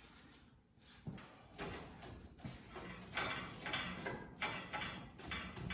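Old hand-cranked forge blower being cranked: a steady low gear hum with a rhythmic whoosh, about two to three pulses a second, starting about a second in.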